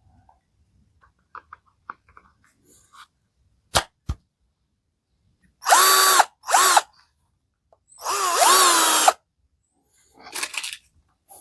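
Parkside PBSA 12 D4 12 V cordless drill-driver running in three short trigger bursts, the last and longest about a second, its motor pitch rising quickly at each start and dipping briefly under load as it drives a small screw. Two sharp clicks come just before the first burst.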